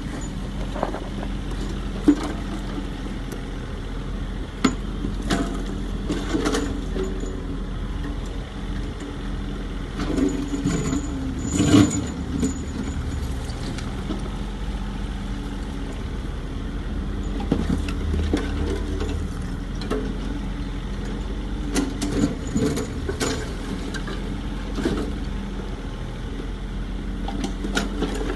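Excavator's diesel engine running steadily, with scattered clanks and knocks from the machine working, the loudest about two seconds in and again near the middle.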